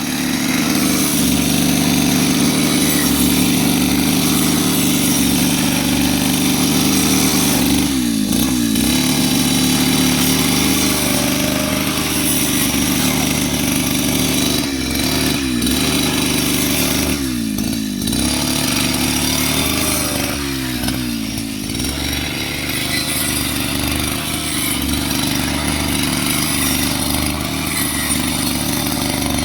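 Small petrol engine of a grass-cutting machine running steadily, its pitch dipping briefly and recovering four times.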